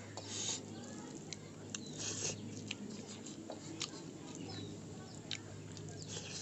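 Eating by hand from a metal plate: fingers mixing rice and brinjal curry and then chewing, heard as many small wet clicks and smacks over a steady low hum.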